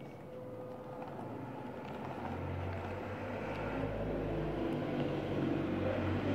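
Low rumble of a motor vehicle, growing steadily louder.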